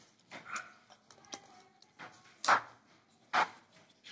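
A metal spoon tossing chopped salad vegetables in a bowl: a few irregular scrapes and knocks, the loudest about two and a half seconds in and another near three and a half.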